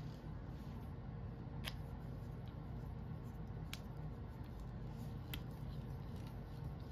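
A plastic craft pen handled in the hands, giving a few sharp clicks about two seconds apart, over a steady low room hum.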